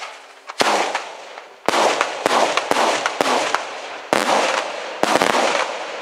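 Daytime fireworks salute: aerial shells bursting in the sky, about a dozen sharp bangs, each trailing off in a rolling echo. The bangs come faster from about two seconds in.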